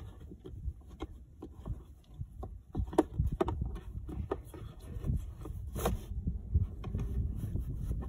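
Scattered plastic clicks and knocks with irregular dull thumps as a child car seat and its seatbelt are handled and pushed into place.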